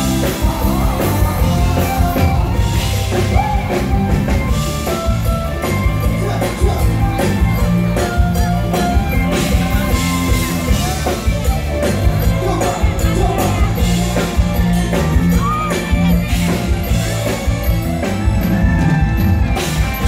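Live band music played loud through a stage PA, with a drum kit keeping a steady beat under a singer's voice.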